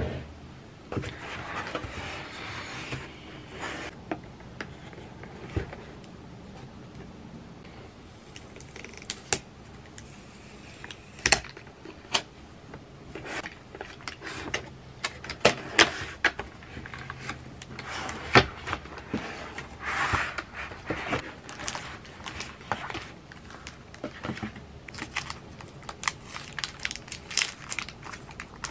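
Handling and opening the cardboard box of a Logitech K380 keyboard: scattered taps and knocks of cardboard on the desk, with sliding scrapes and the rustle of the plastic sleeve as the keyboard comes out.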